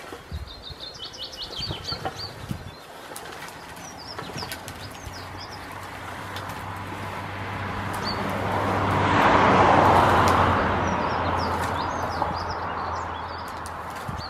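Small birds chirp in short bursts, with light clicks and rattles in the first few seconds. A broad rushing noise with a low hum under it swells over several seconds, peaks about two-thirds of the way through and fades again.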